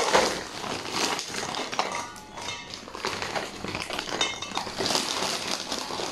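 Marie biscuits sliding out of a plastic packet and clattering into a stainless steel bowl, with the plastic wrapper crinkling.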